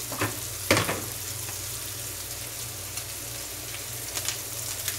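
Chicken liver masala sizzling steadily on a hot tawa griddle, with a couple of sharp clicks in the first second.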